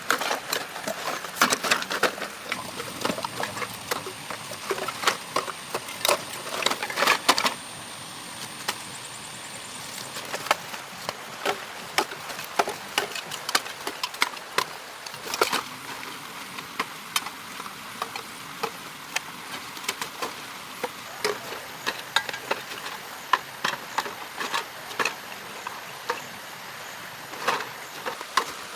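Irregular sharp clicks and knocks over a steady hiss, coming thick and fast for the first several seconds, then more scattered.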